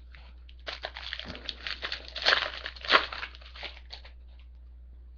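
Foil wrapper of a trading card pack being torn open and crinkled, in a run of crackling that lasts about three seconds and is loudest near the middle.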